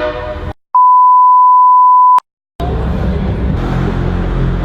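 A censor bleep: one steady, loud, high-pitched beep about a second and a half long, with a moment of dead silence on either side. Just before it a horn's chord cuts off, and after it comes a steady rumble of traffic noise.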